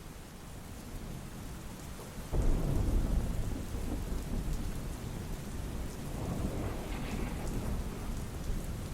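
Steady rain with thunder: a low rumble starts suddenly about two seconds in, is loudest just after it begins and rolls on, swelling again later.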